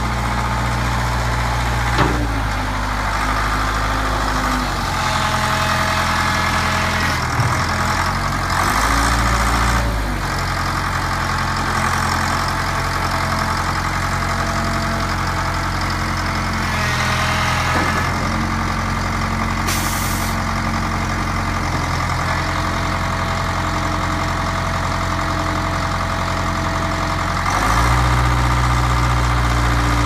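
Case 336 diesel engine of a 1977 Case 680E backhoe-loader running, its speed and loudness shifting several times, louder near the end, with a few short knocks.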